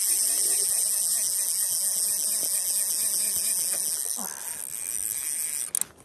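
Hardy Perfect fly reel's click check buzzing steadily as line is pulled off the spool, with a slight dip about four seconds in. It stops abruptly near the end.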